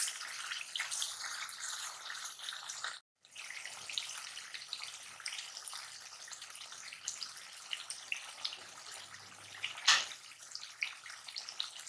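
Beef karahi gravy sizzling and bubbling in a metal karahi as it is fried down with added beef stock and stirred with a wooden spatula. The sound cuts out completely for a moment about three seconds in, and there is one sharp clack near the end.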